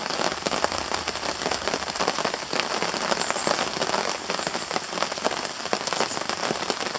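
Steady rain falling, with dense, fine drops pattering on a tarp overhead.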